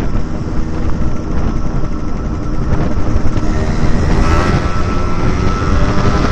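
Yamaha RX-King's two-stroke single-cylinder engine running through an aftermarket 'pure sound' exhaust while riding, loud and raspy. About two-thirds of the way in, its pitch climbs as the rider accelerates.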